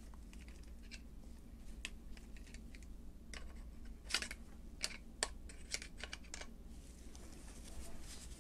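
Scattered light clicks and taps of needle-nose pliers and small metal parts against a jigsaw's aluminium gear housing during reassembly, most of them in the middle stretch.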